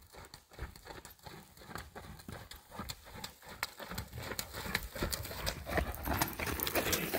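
A horse's hoofbeats on sand arena footing at a canter, a quick uneven run of dull thuds that grows louder as the horse comes close.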